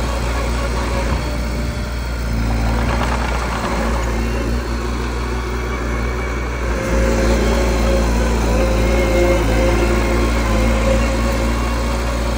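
Mini bulldozer's diesel engine running steadily, a little louder from about seven seconds in.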